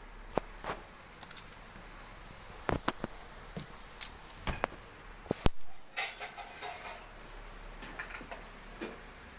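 Sharp metallic clicks and clinks from handling a stainless steel electric deck oven and its open door, about a dozen scattered knocks with the loudest about five and a half seconds in, followed by a short rustle.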